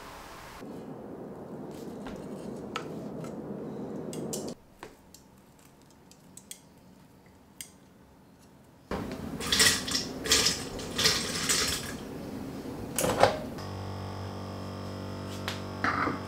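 Metal tongs clattering against a plate while laying ham slices on a croissant, several sharp clinks. Then a small coffee machine brewing into a mug, its pump giving a steady hum.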